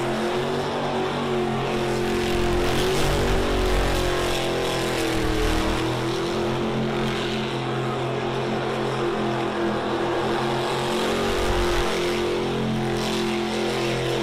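Ford Bronco's engine held at high revs during an all-wheel-drive burnout, running at a steady pitch that sags slightly about five seconds in and then climbs back.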